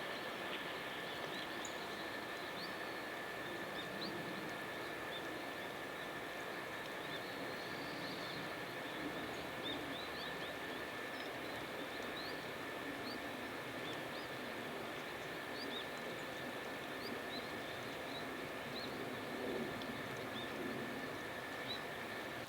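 Outdoor ambience in light rain: a steady hiss with a low rumble underneath and a steady high tone, while small birds give many short, high chirps scattered throughout.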